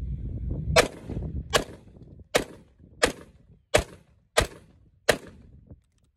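Seven semi-automatic shots from a 10-inch-barrel AR-15 pistol firing steel-cased .223 ammunition, fired at an even pace about two-thirds of a second apart.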